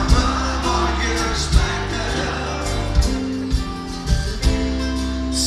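Live band playing a folk-rock song: acoustic and electric guitars over bass and drums, with a heavy beat falling about every second and a half.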